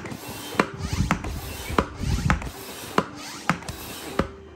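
Tobin Sports inflatable-kayak hand pump being worked up and down at a steady pace: each stroke a rush of air with a sharp click as the handle changes direction, about seven clicks in all. It stops shortly before the end. The kayak chamber it is filling is still at 0 PSI.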